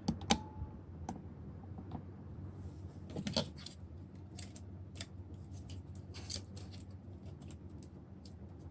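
Scattered small clicks and scraping from hand tools working on a phone's screen glass, with a brief cluster of clicks about three seconds in, over a steady low electrical hum.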